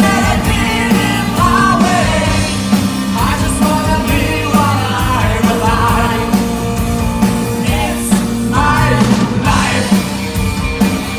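Rock music: a full band with a steady drum beat and a lead melody that bends in pitch.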